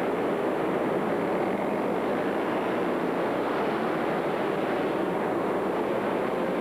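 Several racing kart engines running together at speed: a steady, dense engine din with no single clear pitch and no let-up.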